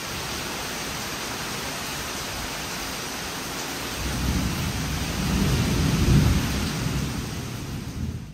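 Steady rain with a low roll of thunder that builds about halfway through and rumbles for a few seconds, then cuts off suddenly at the end.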